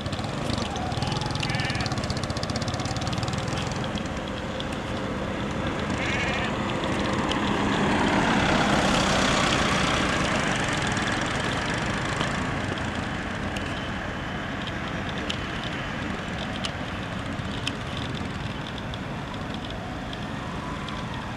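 Road traffic: motorcycle and vehicle engines with tyre noise, one vehicle growing louder and fading away about eight to twelve seconds in.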